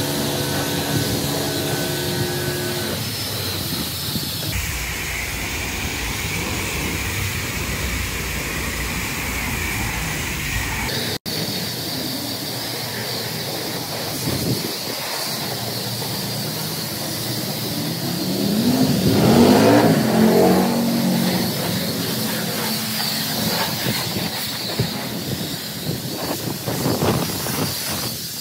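Self-service car wash bay: high-pressure wash wand spraying with its pump running, a steady hiss cut together from several short clips. About two-thirds through, a louder rising sweep comes in.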